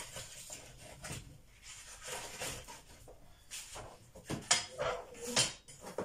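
Cardboard egg trays being torn and pushed into a wood-burning stove's firebox: irregular crunching and rustling, with a few louder knocks near the end.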